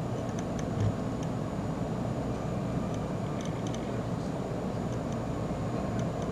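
Steady low hum and hiss of a lit fluorescent light fitting running on its ballast, with a few faint ticks.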